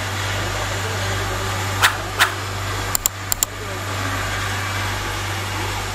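Ice-plant refrigeration machinery, a Bitzer semi-hermetic compressor with its electric motor, running with a steady low hum. Two sharp clicks come about two seconds in, then a quick run of four clicks a second later.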